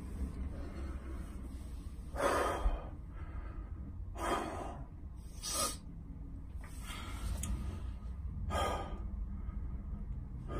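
A man's heavy breaths and exasperated sighs: about five loud, noisy exhalations a second or two apart, over a low steady hum.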